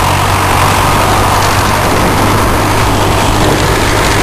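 Tractor engine running steadily under way, hauling a trailer of chopped maize silage, with a loud, even rush of wind and driving noise over the engine's low hum.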